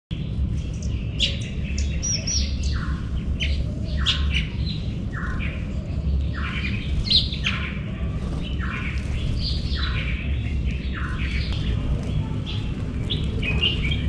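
Small seed-eating birds chirping and twittering, many short calls overlapping and repeating, over a steady low hum.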